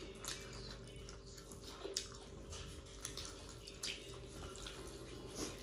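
Faint eating sounds: fingers mixing rice and mutton curry on plates, with soft wet squelches, chewing and a few small clicks over a low steady hum.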